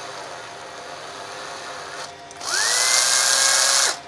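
DeWalt 9.6 V cordless drill run in free air: the motor spins up about two and a half seconds in with a quickly rising whine, holds a steady pitch for about a second and a half, then stops. It runs on an old NiCd pack after one charge/discharge cycle, and the owner judges the result not great.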